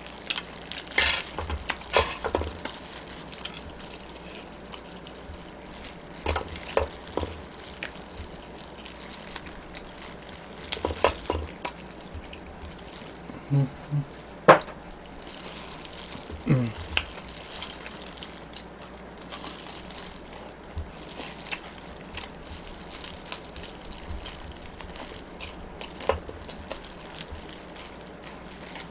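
Close-miked eating sounds: chewing and crackly crunching of fried chicken, with scattered clicks and rustles, the loudest click a little past halfway. A couple of brief low hums come just past the middle.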